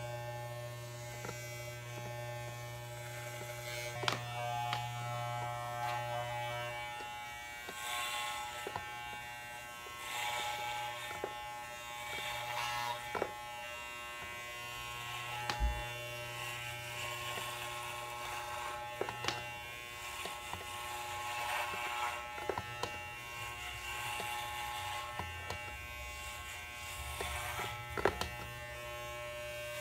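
Corded electric hair clippers with a guard comb buzzing steadily as they are pushed through thick hair, with short rustling passages and a few clicks along the way. The buzz drops a little about seven seconds in.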